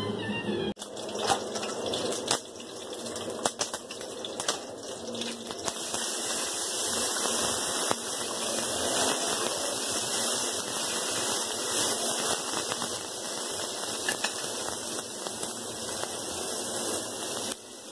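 T-bone steak searing in hot avocado oil in a frying pan: a steady sizzling hiss peppered with crackles and pops, growing fuller a few seconds in as the steak browns.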